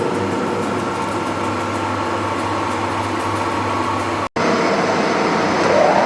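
Metalworking machine tool running steadily with a low electric-motor hum. The sound cuts out for an instant about four seconds in, and a whine rises in pitch near the end.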